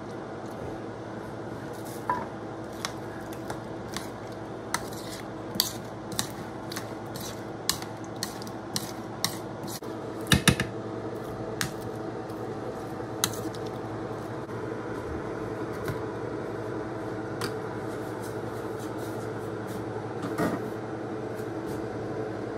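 Spoon stirring a bowl of raw fish salad in coconut milk, clinking and knocking against the bowl at irregular moments, with the loudest cluster of knocks about ten seconds in. The clinks thin out over the last third, leaving a steady hum underneath.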